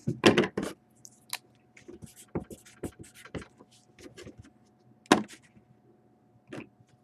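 Trading cards handled on a table: scattered short taps, slides and scrapes, with a louder burst at the very start and a sharper knock about five seconds in.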